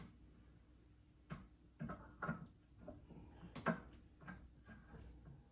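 Light knocks and clicks of heavy statue parts being handled and set down while the figure is assembled, about eight scattered taps with one sharper knock past the middle.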